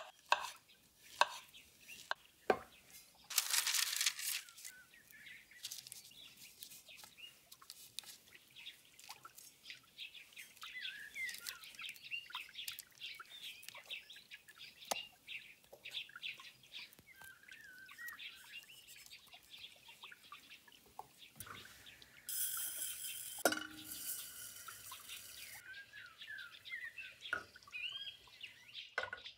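Small birds chirping in the background throughout, over scattered clicks of kitchen utensils. There is a short rush of noise a few seconds in, and a hiss lasting about three seconds about three quarters of the way through.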